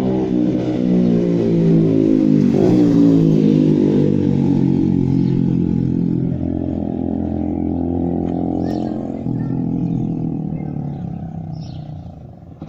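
Suzuki Gixxer SF motorcycle's single-cylinder engine running through a wide chrome exhaust tip, the revs rising and falling. The note fades over the last couple of seconds.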